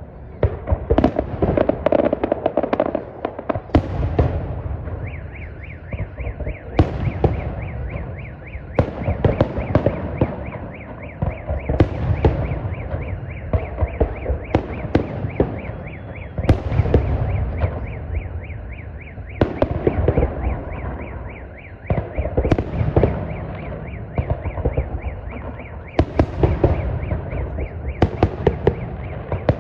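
Aerial fireworks salute going off: heavy shell bursts every two to three seconds, each followed by dense crackling. From about five seconds in, a fast, even, repeating high beep runs behind the bursts.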